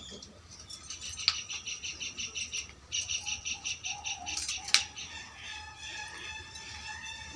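A bird calling in a fast run of high, evenly repeated chirps, about seven a second, with a short break in the middle, then a steadier high warbling. Two sharp clicks stand out, one about a second in and one near the middle.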